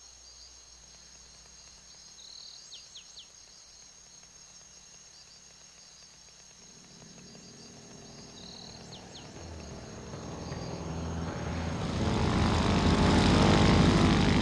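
A small propeller airplane's engine drone that starts faint and grows steadily louder as the plane approaches, loud by the end. Before it builds there is a steady high insect hum with a few short chirps.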